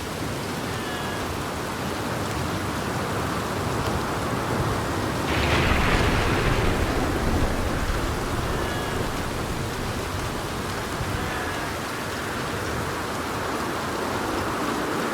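Steady rain with a roll of thunder that breaks about five seconds in, swells for a couple of seconds and then fades back into the rain.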